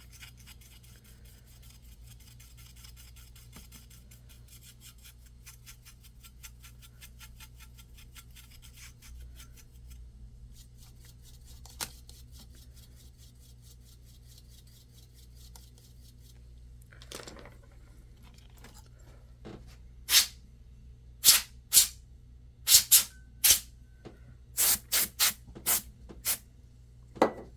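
Quiet bench handling noise, then about a dozen short, sharp hissing or clicking bursts in the last ten seconds.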